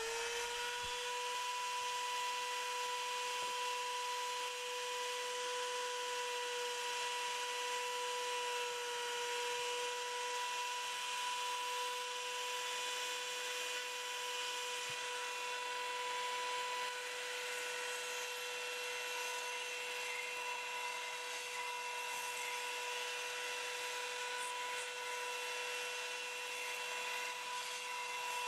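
Electric belt sander, clamped upside down as a belt grinder, running at a steady speed with a constant whine and sanding hiss as a scythe blade's edge is ground on the rounded end of the belt with light pressure.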